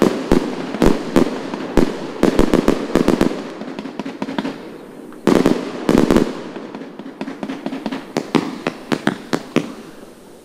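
Aerial fireworks bursting overhead in a rapid string of sharp bangs, with a fresh loud volley about five seconds in and scattered reports after it.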